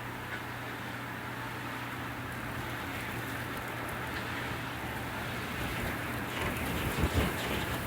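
Winter wind blowing outside a window, heard from indoors as a steady rushing over a low, even hum, swelling into a stronger gust about six seconds in before easing near the end.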